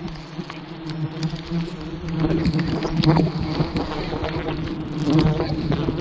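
A swarm of giant honey bees buzzing close around, a steady hum that grows louder about two seconds in: the colony is stirred up and stinging as its cliff nest is approached. Scattered short clicks and rustles sound over the hum.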